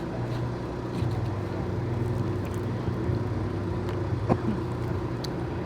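An engine running steadily, a low even hum, with a brief vocal sound about four seconds in.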